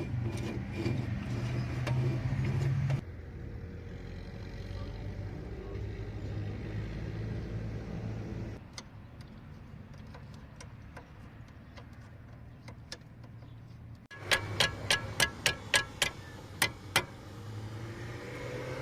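A steady low mechanical hum that changes abruptly twice. Near the end come about ten sharp knocks in quick succession, roughly three a second.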